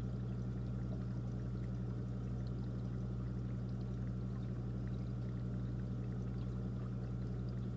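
Aquarium running: a steady trickle of moving water over a low, constant hum, with faint scattered ticks.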